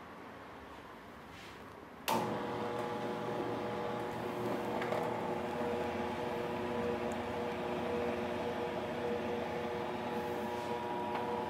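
Electric dough sheeter switching on about two seconds in and running with a steady motor hum as a sheet of whole-wheat dough is fed through its rollers.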